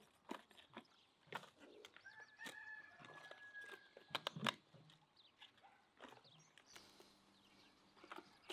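Crisp raw cabbage leaves crackling and snapping as they are pressed into a cast-iron cauldron, with the loudest crackles a little after four seconds in. A rooster crows faintly, one held call of about a second and a half, a couple of seconds in.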